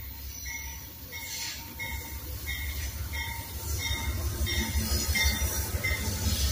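Amtrak passenger train hauled by two GE Genesis diesel locomotives rolling past, its low diesel rumble and wheel noise growing louder as the locomotives come alongside. A bell rings steadily through it, about one and a half strokes a second.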